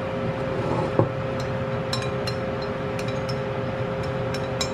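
Wooden chopsticks pushing dry egg noodles off a ceramic plate into a steel pot of hot water: a knock about a second in, then light clicks of chopsticks against the plate and pot rim. Underneath is a steady hum with a droning tone.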